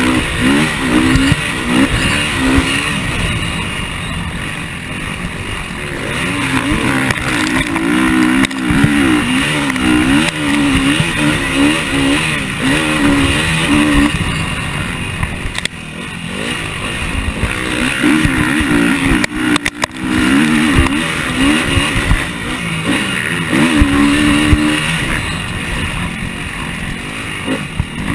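KTM motocross bike's engine ridden hard, its pitch rising and falling with the throttle and dropping back briefly a few times, over a steady rush of wind noise.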